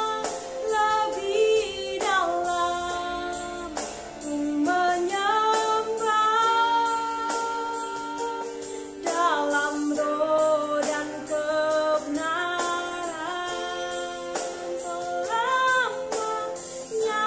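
A woman singing a slow Indonesian worship song solo, in long held notes that glide between pitches, with short breaths between phrases.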